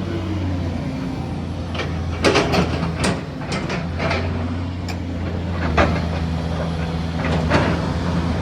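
Caterpillar 336D L hydraulic excavator's diesel engine running steadily, with several sharp metallic knocks and clanks over it: a cluster about two to four seconds in, then a few more near the end.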